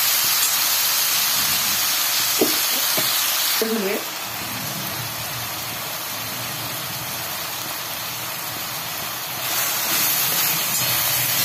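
Chopped onions, peanuts and green chillies sizzling in hot oil in a steel kadhai, stirred with a slotted steel spoon while the onions fry toward translucent. The sizzle drops quieter about four seconds in and picks up again near the end.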